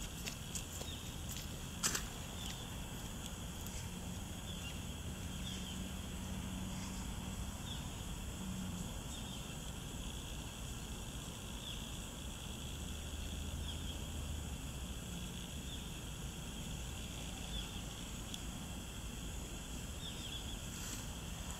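Steady outdoor ambience: a continuous high drone with faint short chirps every second or two, over a low rumble, and one sharp click about two seconds in.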